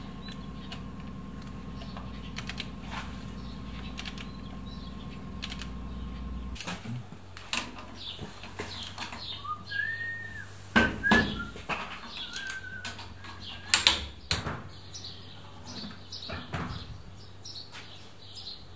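Sharp clicks and knocks of hand tools as a long wrench tightens the bolts of a disc-brake caliper, the loudest coming twice in the second half. A steady low hum runs through the first six seconds, and birds chirp for a few seconds around the middle.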